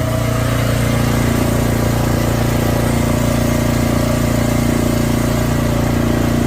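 Drain jetter's engine running steadily at a constant speed.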